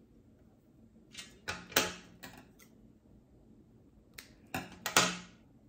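Short clicks and rustles from handling fabric and parts at a sewing machine, about eight in all, the sharpest near the middle and near the end; the machine itself is not running.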